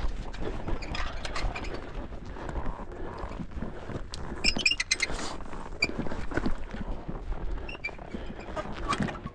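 Boots stepping and scuffing on rock while a hand works a steel cable handline on a steep scramble, with a cluster of sharp clicks about halfway through.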